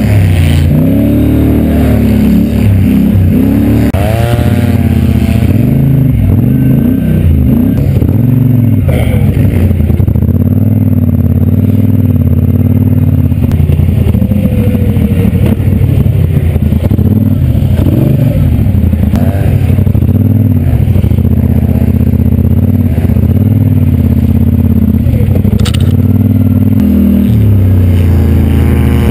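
ATV engine running close under the rider, its pitch rising and falling with the throttle as the quad is ridden.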